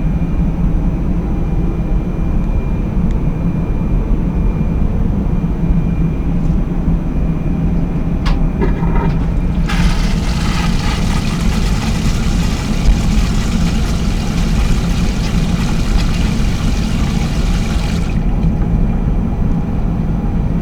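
Ilyushin Il-96 airliner toilet flushing: a click about eight seconds in, then a rushing hiss for about eight seconds that cuts off suddenly. The steady drone of the aircraft in cruise runs underneath.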